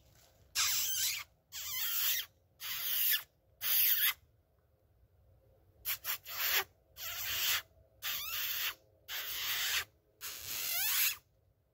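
A hunter squeaking through pursed lips to imitate a distressed rodent, a predator call meant to lure in a coyote. The squeaks come in short, sharp bursts, a run of four, a pause of about two seconds, then a run of about five more.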